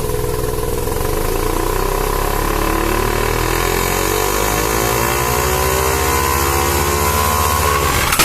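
Turbocharged 13B rotary engine of a Mazda RX-7 SA22C, revving with its note climbing slowly and steadily for most of the stretch, then breaking off just at the end. The owner reports that this engine misfires under boost.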